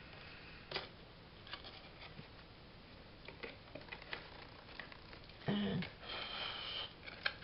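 Faint rustling and small ticks of paper and silk ribbon trim being handled and threaded through a paper tag. About five and a half seconds in there is a brief low hum from the crafter, then a sniff lasting about a second.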